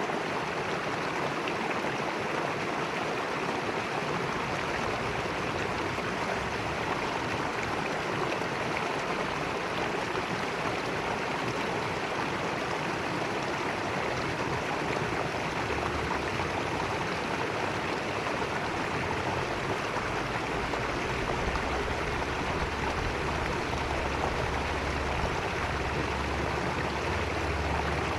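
A small mountain creek running steadily over rocks, an even rushing and babbling of water. A low rumble joins in about halfway through.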